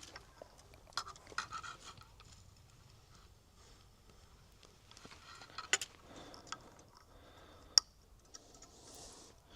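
Scattered small clicks and knocks with some light rustling, like objects being handled and set down, the sharpest click a little before the end.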